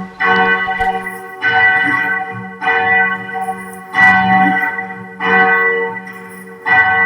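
A large bell tolling: six strokes at an even pace, about one every second and a quarter, each ringing on and fading before the next.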